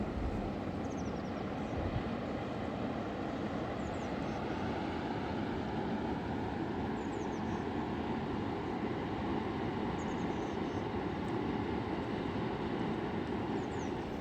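Steady rushing of a mountain river, even in level throughout, with faint short high chirps every few seconds.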